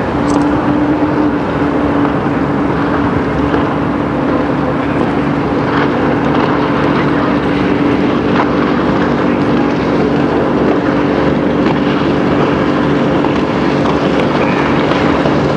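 Speedboat engine running steadily at speed, a drone that holds one pitch over a rushing haze.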